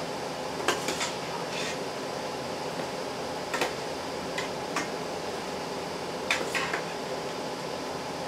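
Metal ladle clinking against a stainless steel pot as salsa is scooped out: sharp clinks in small clusters, about a second in, near the middle and again past six seconds, over a steady background hum.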